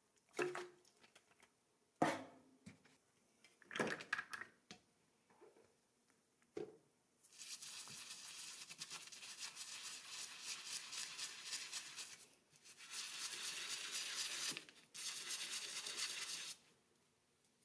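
A few knocks and clatters as small rubber toy tyres in a wire basket are handled, then a small hand brush scrubbing a toy truck tyre in quick steady strokes for about nine seconds, with two short breaks.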